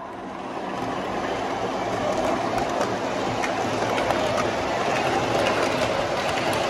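O gauge model R188 subway train running along three-rail track, its rumble growing louder over the first couple of seconds as it comes closer and then holding steady, with faint clicks from the wheels over the track.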